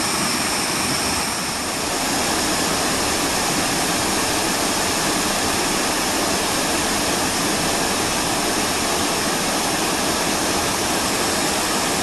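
Waterfall pouring over a low stone dam and churning white over the rocks below: a steady, loud rush of water, the flow running high after rain.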